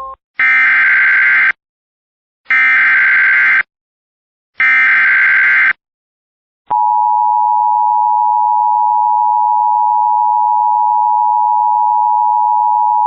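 Emergency Alert System broadcast tones. First come three one-second bursts of the warbling SAME digital header, about a second apart. About seven seconds in, the steady two-tone EAS attention signal starts and holds, announcing an emergency alert message.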